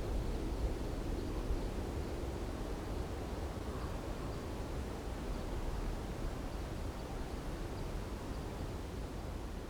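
Light wind blowing as a steady, low rumbling hiss that eases slightly near the end.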